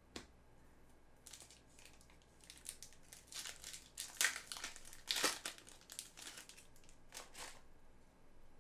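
A foil trading-card pack wrapper being torn open and crinkled by hand, in a string of crackly rustles. The rustling is loudest about four and five seconds in.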